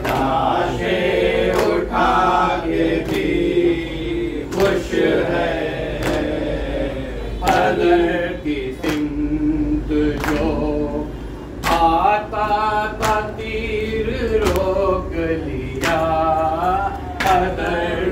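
Men chanting a noha, a Muharram lament, together in unison. Sharp hand slaps fall in a steady beat about every second and a half: the chest-beating of matam kept in time with the chant.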